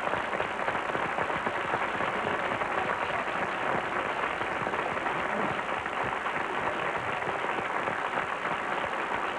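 Large studio audience applauding steadily, a dense even clapping with no let-up.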